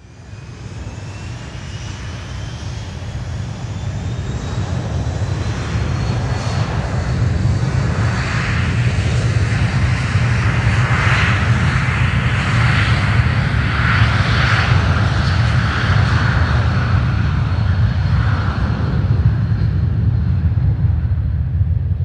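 Aircraft taking off: its turbine engines spool up with a whine that rises in pitch over the first several seconds. The engine noise builds to a loud, steady take-off run over a deep rumble.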